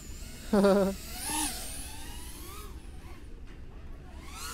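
FPV racing quadcopter's motors whining, the pitch rising and falling with the throttle as it flies past and climbs away. A short vocal call about half a second in.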